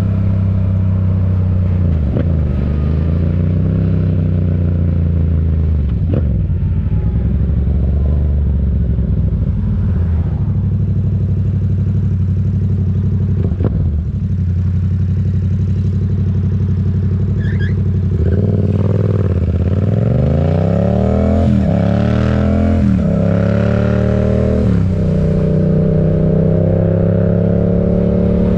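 Yamaha MT-07's parallel-twin engine through an M4 aftermarket exhaust while riding, holding a steady pitch with a few brief dips. About two-thirds of the way through it accelerates, the pitch climbing and dropping back several times as it shifts up through the gears, then settles into a steady cruise.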